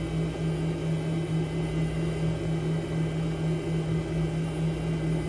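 A steady low mechanical drone with a level that swells and dips a few times a second. No crash impact stands out.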